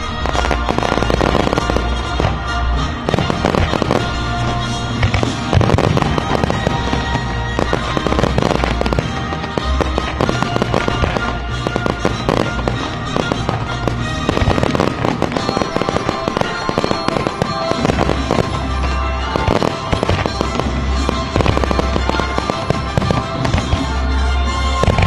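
Aerial fireworks bursting and crackling in rapid, overlapping succession, with music playing underneath and sustained bass notes.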